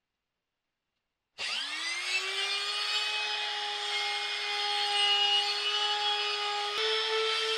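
Trim router switched on about a second and a half in, spinning up quickly to a steady high whine while its bit works the plywood. Near the end a click and the whine steps up a little in pitch.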